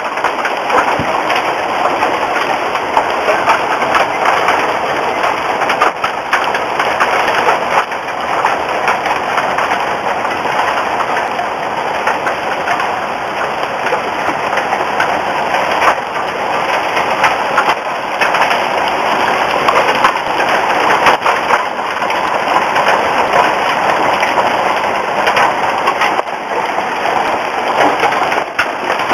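Hail and rain pelting down in a dense, steady clatter of countless small impacts.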